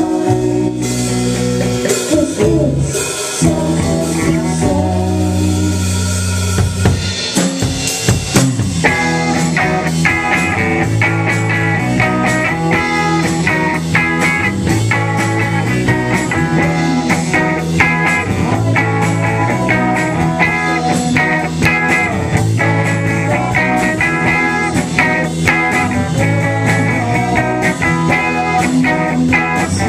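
Live rock band playing electric guitar, bass guitar and drum kit. The first several seconds are a sparser passage of held bass notes; from about nine seconds in the full band plays a dense, driving part with steady drumming.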